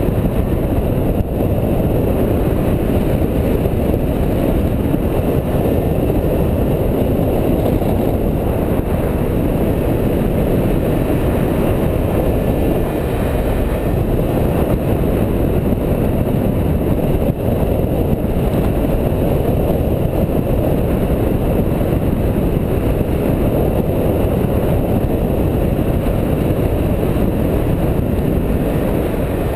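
Steady, loud rush of wind on the microphone of a harness-mounted camera during paraglider flight, an even low rumble with no engine or voice.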